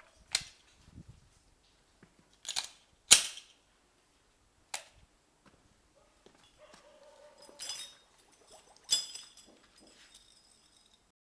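Glock pistol shots fired underwater: about six sharp bangs at uneven intervals, the loudest about three seconds in.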